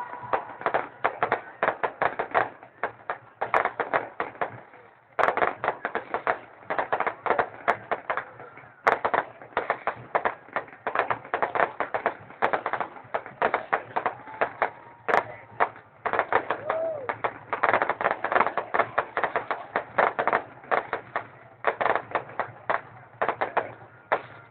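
Fireworks going off: a dense, rapid crackling of many sharp cracks a second, with a short lull about five seconds in.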